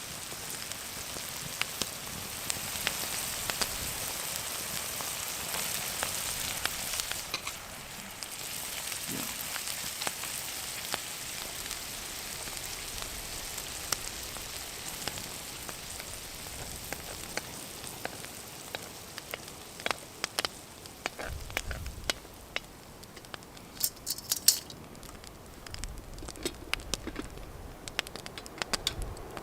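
Bacon sizzling in butter in a skillet over a campfire: a steady high hiss, with sharp pops and crackles coming more often in the second half.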